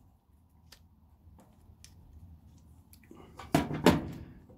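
Hand cutters snipping through the red high-voltage lead of a K40 laser tube: a few faint clicks as the blades are set on the wire, then two sharp snaps near the end as they cut through.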